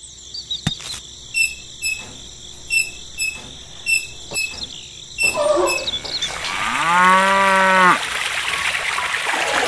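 A cow moos once, a single long call of about a second beginning about seven seconds in, over the steady chirping of crickets.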